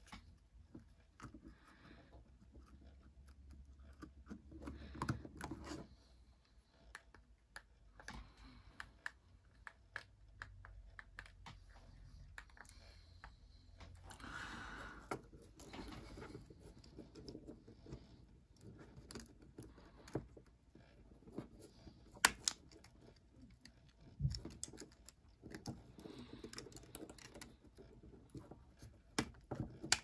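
Irregular light clicks, taps and scrapes of an opened fourth-generation iPod's parts being handled by hand as its hard drive and ribbon cable are fitted back and the case is pressed together. A few clicks stand out sharper, the loudest a little past the middle.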